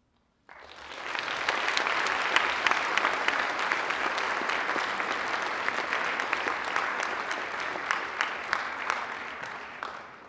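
Audience applauding, starting abruptly after silence about half a second in, holding steady, then fading away near the end.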